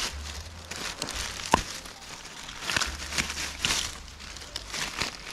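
Dry dead canes and leaf litter rustling and crackling as a hand pushes through them, with a few sharp snaps of crisp young shoots being broken off. The loudest snap is about one and a half seconds in.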